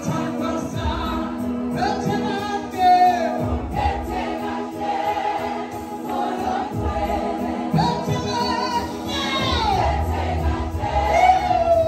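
Music with a choir singing over sustained instrumental backing, the voices sliding and wavering in pitch.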